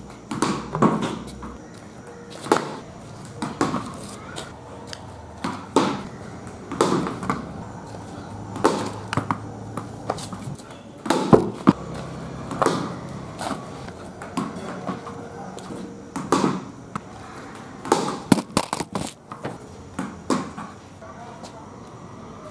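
A cricket bat striking a ball over and over, one sharp knock every second or two, some coming in quick pairs as the ball bounces on the concrete before it meets the bat.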